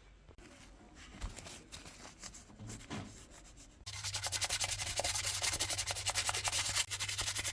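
Light handling clicks, then about four seconds in a loud, fast, even scrubbing starts with a low hum beneath it: a laptop cooling fan being cleaned of built-up dust.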